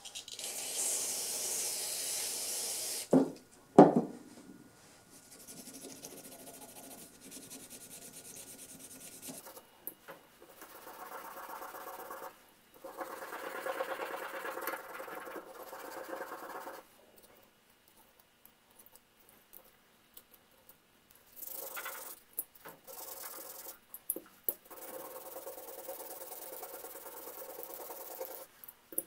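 An aerosol can hissing out a spray for a couple of seconds, then two sharp knocks, followed by stretches of scrubbing and scraping as grime is worked off the brace's steel chuck jaws.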